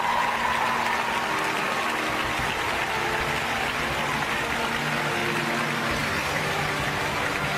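Audience applauding and cheering, with music playing under it.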